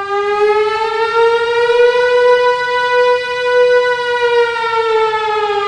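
Emergency-alert siren tone: one long wail with a buzzy, overtone-rich sound that rises slightly in pitch, holds, then sags back near the end and cuts off suddenly.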